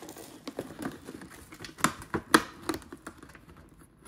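Packaging crinkling and rustling as a gift is unwrapped by hand, with scattered light clicks and taps.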